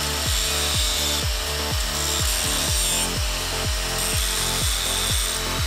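Hand grinder grinding down a steel U-bolt nut, a steady harsh hiss of the disc on metal, to take off about half a millimetre so a steering ball joint clears it. Background music with a steady beat plays underneath.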